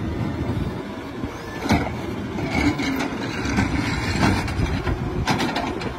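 Automated side-loader garbage truck with its diesel engine running steadily, and a couple of sharp knocks about two seconds in and near the end.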